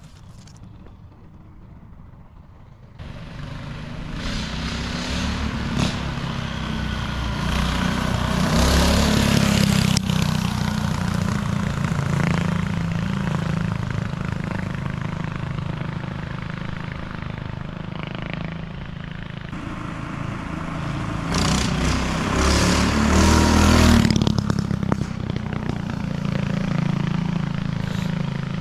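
Predator 224 single-cylinder four-stroke engine on a hardtail mini bike running under throttle on a test ride. It is quieter for the first three seconds, then comes in loud and swells and fades, loudest about a third of the way in and again near the end.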